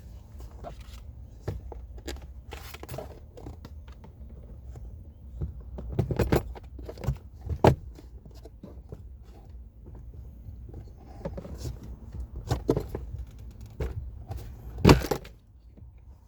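Scattered plastic clicks, scrapes and crackles from handling a cabin air filter and sliding it into its housing behind the glovebox, with a sharp snap about halfway through and another near the end. A low steady hum runs underneath.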